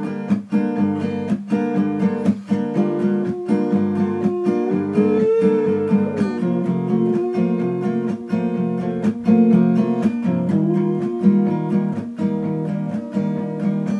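Steel-string acoustic guitar strummed in a steady, even rhythm, its chords ringing between strokes.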